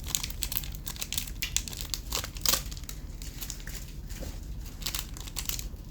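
Handling noise from small objects being moved about: scattered light clicks and a crinkling rustle, with one sharper click about two and a half seconds in.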